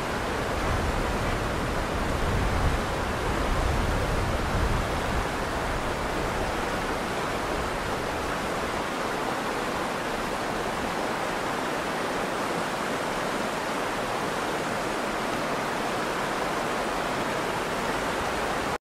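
Shallow rocky stream rushing steadily over stones and a small rapid. A low rumble swells and fades in the first five seconds, and the sound cuts off suddenly near the end.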